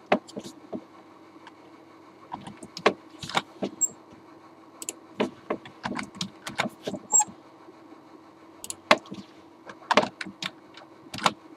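Computer keyboard typing: short, irregular runs of keystrokes and clicks with pauses between them, over a faint steady hum.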